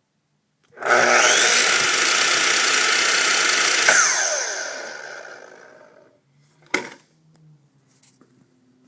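Makita miter saw's electric motor switched on, spinning up quickly and running at full speed for about three seconds, the way it works when healthy, then switched off and winding down with falling pitch. A single sharp knock follows near the end.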